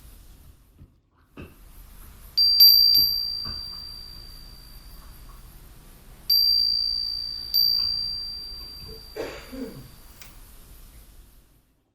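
A high-pitched chime struck several times: about two seconds in with a couple of quick re-strikes, then twice more midway. Each strike rings one clear high note that fades slowly, with a brief soft rustle near the end.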